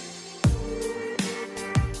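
Background electronic music with sustained chords; a heavy kick drum beat comes in about half a second in.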